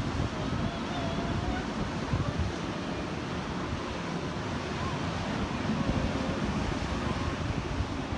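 Wind buffeting the microphone with a gusty low rumble, over the steady wash of ocean surf breaking on the beach.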